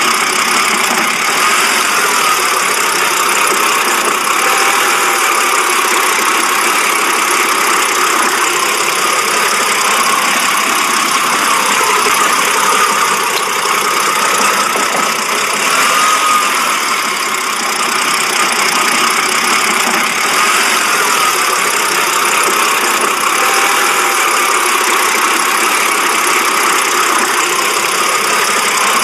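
BMW engine idling steadily with no revving, the rough idle that BMWs of this kind are known for.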